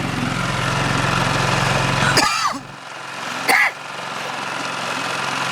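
Boat engine running with a steady drone, dropping away sharply a little over two seconds in. A short voice-like sound follows, then a brief sharp burst about three and a half seconds in.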